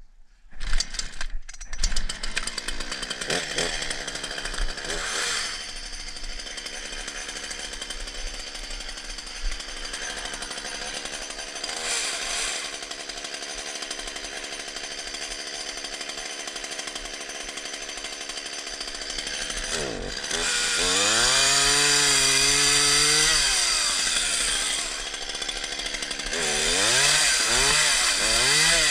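Chainsaw comes on about half a second in and runs steadily at a low speed. About 20 seconds in it is throttled up and gets louder, its pitch climbing and holding, then near the end it is revved up and down several times.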